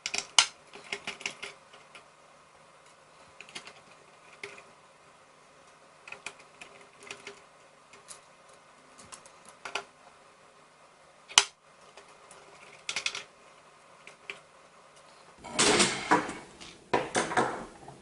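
Scattered small clicks and taps of a precision screwdriver and tiny screws being set down on a table as a graphics card is taken apart. Near the end comes a louder, longer clatter as the card's parts are handled and pulled apart.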